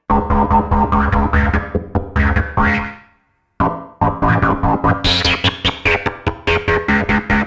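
Electronic dance music: pulsing synthesizer chords over heavy bass in a quick, even rhythm. It cuts out completely about three seconds in, then comes back, with crisp high percussion ticking in the second half.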